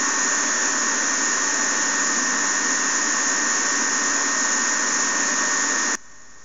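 Loud, steady blowing noise with a thin whine on top, from a caloric irrigator running during a left-ear cool caloric test, played back from a videonystagmography recording. It drops sharply near the end as the playback volume is turned down, leaving a faint hum.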